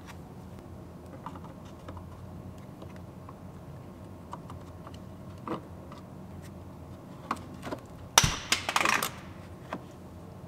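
Plastic wheel opening molding on a 2018 Ford Explorer being worked off the body: scattered light clicks and taps, then about eight seconds in a loud sharp snap and a second of clattering as the molding unclips from its retainers.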